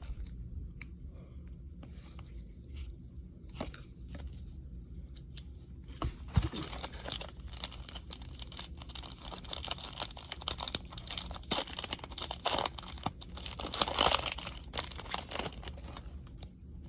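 Foil wrapper of a 2020 Topps Series 1 baseball card pack being torn open and crinkled. A few light clicks come first; from about six seconds in there is a long stretch of tearing and crinkling that stops shortly before the end.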